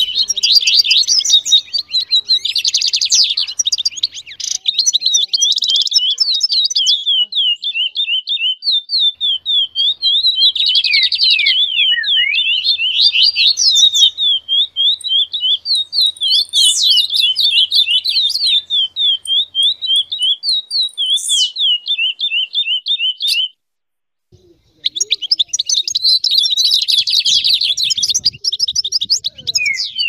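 Several songbirds singing together, a dense run of rapid high chirps, slurred notes and trills. The song stops dead for about a second and a half near the end, then starts again.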